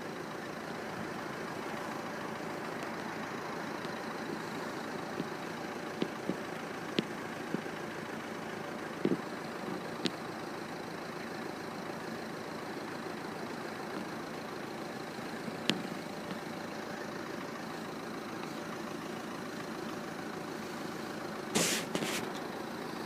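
Diesel multiple-unit passenger train passing over a level crossing: a steady engine and running noise with scattered sharp clicks, and a brief louder burst near the end.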